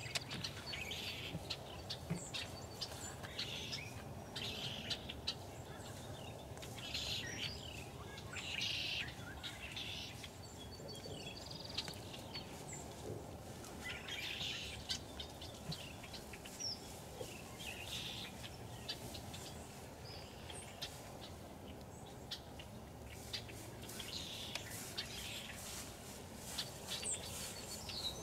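Small birds chirping and calling in short, scattered bursts, over a steady low background noise.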